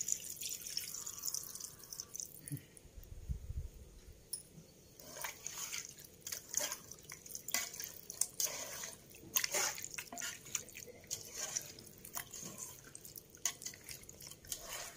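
Vinegar pouring from a glass onto marinated chicken in a steel pot, then a hand squelching and turning the wet chicken pieces in the vinegar marinade, with many short wet clicks and squishes from about five seconds in.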